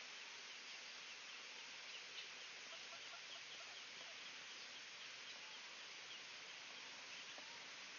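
Faint, quick high-pitched peeping from ducklings, many short notes a second, over a steady high hiss of outdoor background noise.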